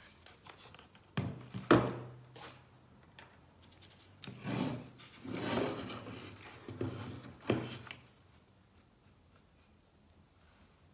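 A wooden crate knocks twice as it is handled, then a stiff paintbrush scrubs across the crate's wood and mouldings in short scratchy dry-brush strokes that stop about eight seconds in.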